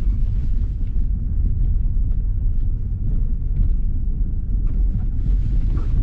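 Steady low rumble of road and tyre noise heard from inside the cabin of a Lada Vesta on the move, with a few faint light ticks in the middle.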